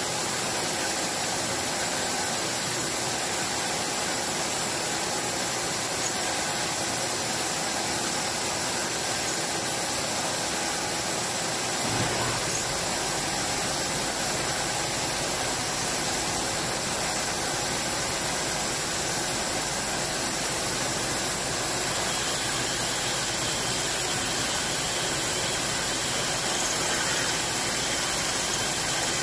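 CNC milling machine drilling, its spindle running under a steady hiss of mist coolant spraying at the drill bit. A deeper hum comes in about twelve seconds in.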